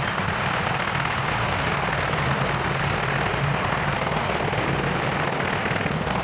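AH-64 Apache attack helicopter hovering close by: a steady chop from its four-blade main rotor over the rush of its twin turboshaft engines.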